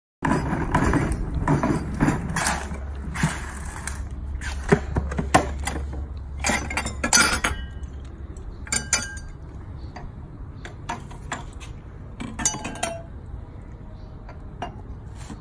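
Glassware and drink cans clinking and knocking as a plastic cooler is opened and stemmed glasses are handled and set down on a table, with a few brief ringing glass clinks. A low rumble sits under the first few seconds.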